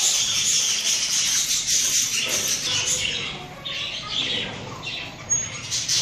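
Small yellow parrot chattering and squawking inside a cardboard tube, a dense run of high calls for about three seconds, then breaking into separate short chirps.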